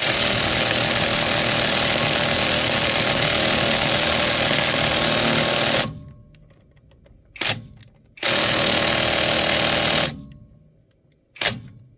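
Bauer brushless 3/8-inch cordless impact wrench hammering on a truck lug nut: one long run of about six seconds, a short blip, a second run of about two seconds, then another short blip. The nut is being broken loose, and the owner believes it was over-torqued by a tire shop's air impact.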